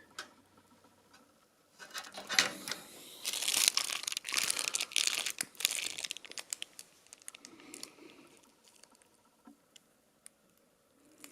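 Rustling and clicking of plastic as the bundle of PC case front-panel connector leads is handled, busiest for a few seconds in the middle, then a few scattered clicks.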